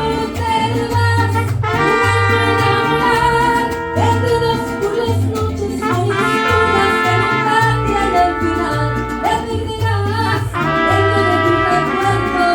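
Mariachi band playing an instrumental passage between sung verses: trumpets in long held phrases, a new phrase starting about every four seconds, over a steady pulsing bass line.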